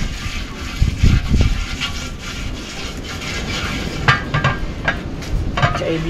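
A large lidded aluminium cooking pot being shifted and set down on sandy ground. There are dull knocks about a second in, and a few sharp clicks and scrapes later and again near the end.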